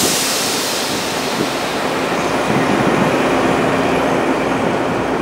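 Twilight Express 24-series passenger cars rolling past, a steady rumble of wheels on rail. A hiss of air, loudest at the very start, fades over the first second.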